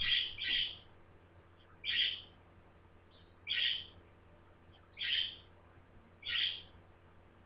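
A budgerigar calling: six short, harsh calls, a quick double call at the start and then single calls about every one and a half seconds.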